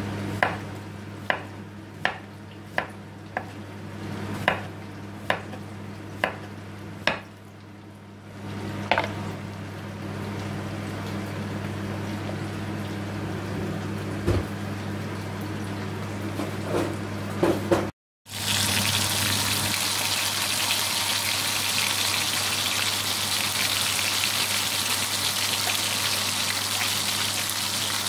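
Kitchen knife chopping through cucumber onto a wooden chopping board, about ten strokes roughly a second apart, over the low sizzle of beef burger patties frying in a pan. After a break about two-thirds of the way in, loud, close sizzling of the patties frying in oil.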